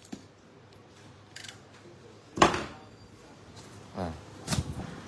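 Box cutter slicing through packing tape on a cardboard box: a few short scrapes and rips, the loudest about two and a half seconds in.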